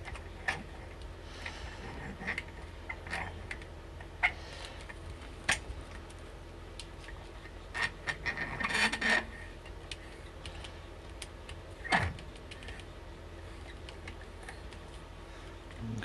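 Handling noises of a cable lock being clamped in a small bench vise: scattered light clicks and knocks from the vise's sliding handle and the lock head, with a longer scraping rustle about nine seconds in and a short sliding scrape near twelve seconds, over a steady low hum.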